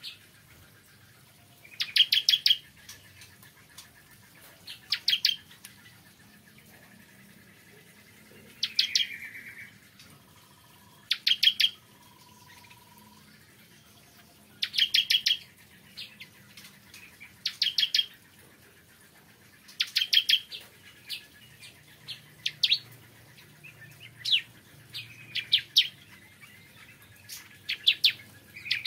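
Bar-winged prinia singing: short bursts of rapid, sharp chipping notes, repeated every two to three seconds.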